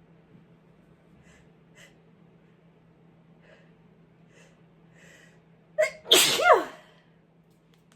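A woman sneezing once while sick, about six seconds in: a sharp catch, then a loud voiced burst that falls in pitch. Several faint breaths come before it.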